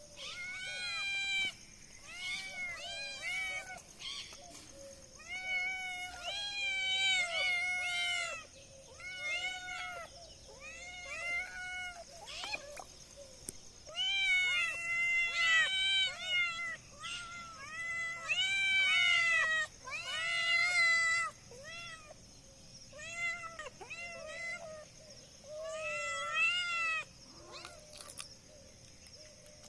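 Several kittens mewing over and over: short, high, rising-and-falling mews that often overlap.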